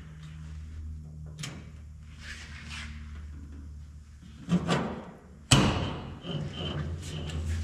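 Windshield frame being shifted on a bare steel car cowl: a few sudden metal knocks and clunks, the loudest about five and a half seconds in, over a low steady hum.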